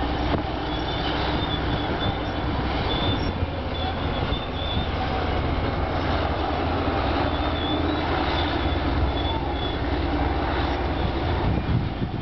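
Heavy diesel engines of a Caterpillar D9G bulldozer and a 631D scraper running hard under load as the dozer pushes the scraper, a steady deep rumble with short, high metallic squeals recurring every second or so.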